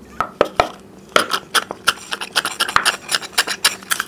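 Two people sucking small Maaza mango-drink cartons through straws: a rapid, irregular run of sharp crackling slurps, starting just after the beginning, as the cartons are drawn near empty.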